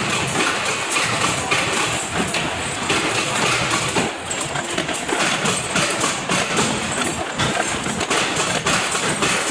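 Factory machinery running, with a dense, continuous clatter of rapid metal knocks and clicks.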